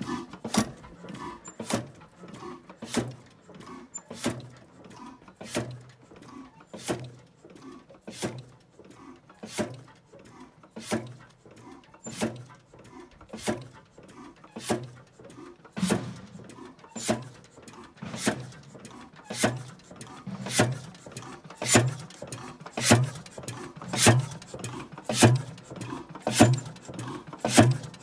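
1925 Crossley O115 single-cylinder heavy-oil (diesel-type) stationary engine running slowly: one sharp exhaust beat about every 1.2 s, with lighter ticks of the valve gear between beats. The beats grow louder in the second half.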